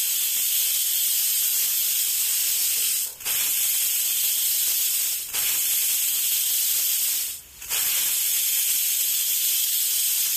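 Stainless-steel pressure cooker hissing steadily as steam escapes around its weight valve while it builds pressure. The hiss is not yet a whistle, and it drops out briefly three times.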